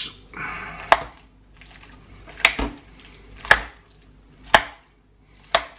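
Large metal spoon stirring a thick mix of cooked rice, spinach and chicken in a pot. It knocks sharply against the pot about once a second, five knocks, with soft stirring sounds of the food between.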